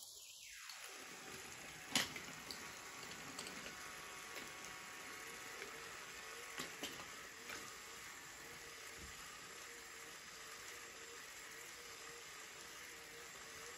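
Battery-powered wooden toy train engines running together on wooden track: a faint steady whir of small motors and rolling wheels, with a few light clicks of cars knocking together, one about two seconds in and a cluster around seven seconds.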